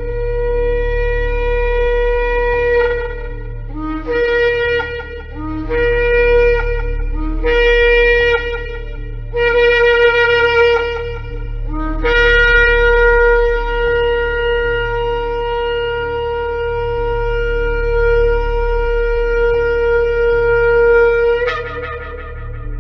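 Shofar blown in five blasts of one to three seconds each, then one long held blast of about nine seconds that jumps up in pitch just before it ends, over a low steady drone.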